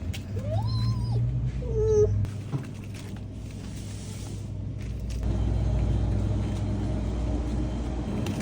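A child's wordless voice, two short high calls in the first two seconds, the first rising and holding before dropping, over a steady low hum.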